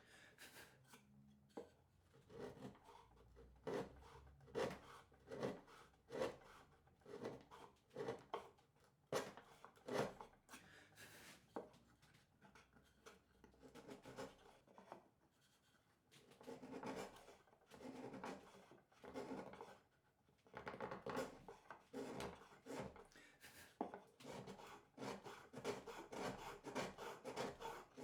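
A hand tool scraping and rubbing on wood in repeated short strokes, about one to two a second, with a few brief pauses.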